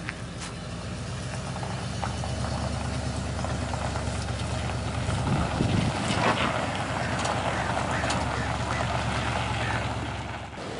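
Old gas-engined Class A motorhome's engine running as the motorhome pulls away, a steady low hum that grows louder a couple of seconds in. The engine is running again on a newly fitted starter.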